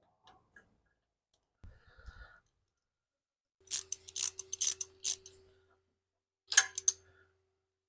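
Sharp metallic clicking in two short runs, about three clicks a second and then a quick few near the end, as a new spark plug is fitted into the Briggs & Stratton engine. A few faint knocks come first.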